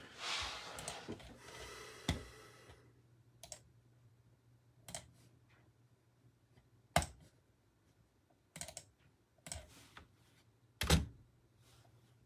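A short rustle, then scattered single clicks and taps on a computer keyboard and mouse, one every second or two, over a faint steady low hum.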